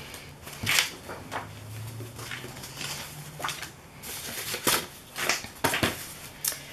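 Paper napkins being handled and moved across the table, giving a series of short, irregular rustles over a faint low hum.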